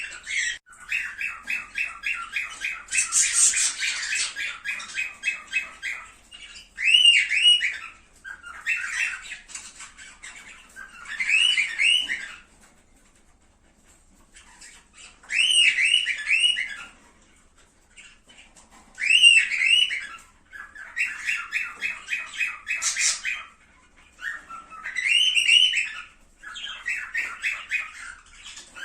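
Cockatiels calling in repeated bursts of squawks and rapid chattering runs, with a pause of a few seconds midway.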